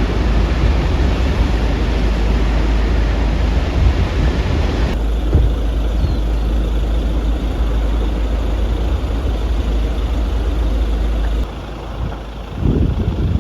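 Steady wind buffeting the microphone: a heavy low rumble with hiss. The sound changes abruptly about five seconds in and again near the end.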